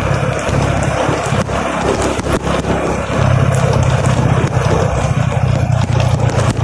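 Motorcycle engine running at road speed, with wind rushing over the microphone; the low engine drone gets louder about three seconds in. A few short knocks.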